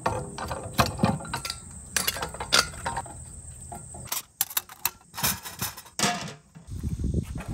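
Scattered clicks and metal clanks of parts being handled and fitted as a FIREDISC propane disc cooker is set up. A steady high insect trill carries on behind them.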